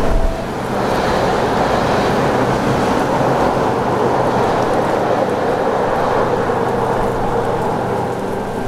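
Strong gusty blizzard wind, a loud rushing that swells about a second in and holds.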